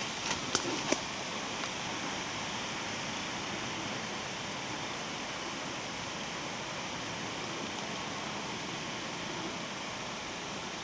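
Steady wind hiss, with a few light clicks in the first second.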